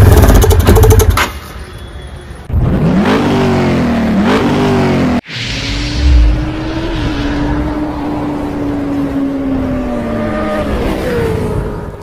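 Motorcycle engine revving sound effect: two quick rises and falls in pitch, a sudden cut about five seconds in, then the engine held at a steady pitch that drops away near the end.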